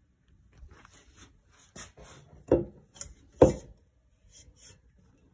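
Metal leg of an IKEA Hauga bed frame being fitted into its bracket by hand: light clicks and scrapes, with two louder knocks about a second apart around the middle.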